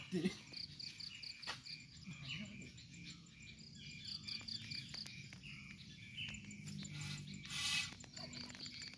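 Insects chirping in a rapid, even rhythm, with a short hiss about three-quarters of the way through.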